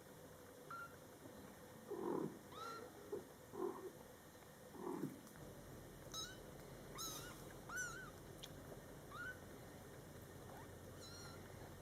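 Mother cat giving a few short, low calls about two to five seconds in, then Scottish Fold kittens mewing: about six short, high-pitched mews that rise and fall.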